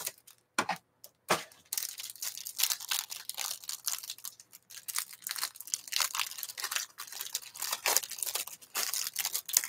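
Clear plastic wrapper on a stack of football trading cards being torn open and crinkled by hand. It starts with a couple of sharp clicks, then crackles continuously.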